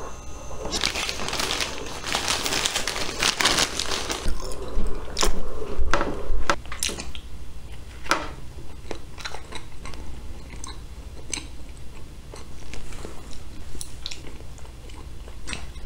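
A person biting and chewing a slice of soft keto sandwich bread close to the microphone, with wet mouth clicks and smacks. A dense rustling fills the first few seconds.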